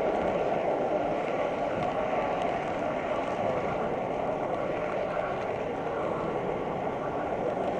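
Model train running along the layout's track, a steady rolling rumble of its wheels and drive heard close up from a camera riding on the train.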